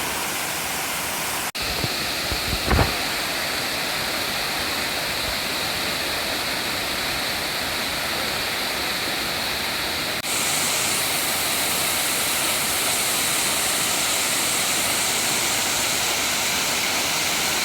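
Waterfall rushing steadily, a constant hiss of falling water, with a brief low thump about three seconds in.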